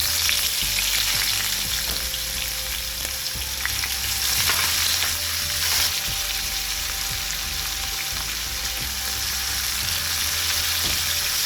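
Chopped onions frying in hot oil with cumin seeds and garlic in a non-stick frying pan: a steady, fairly loud sizzle with a few light clicks from stirring.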